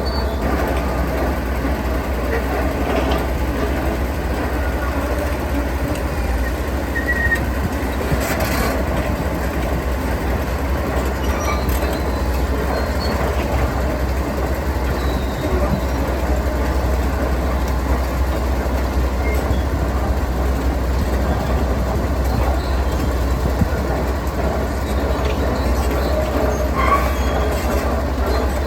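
Heavy diesel construction machinery running steadily with a deep rumble, with a few faint knocks and clanks.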